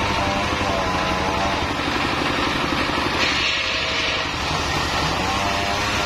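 Stationary single-cylinder diesel engine running steadily, driving a circular sawmill blade. A little over three seconds in, the blade cuts through mahogany for about a second with a hissing rasp.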